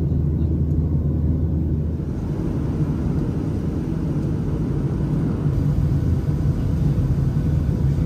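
Steady in-cabin rumble of a Boeing 737 jet airliner in flight, heard from a window seat over the wing. The tone changes abruptly about two seconds in and again a little past the middle.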